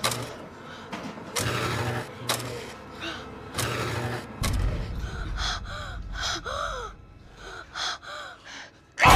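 Frightened children gasping and breathing hard in short rushes, with brief whimpering cries in the second half.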